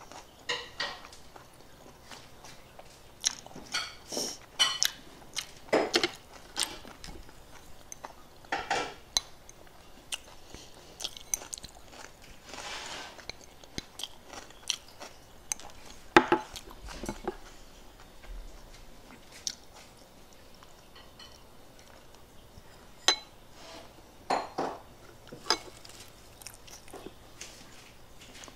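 Close-up eating sounds: a person chewing and biting food, with irregular sharp clicks and clinks of chopsticks against a rice bowl and plates.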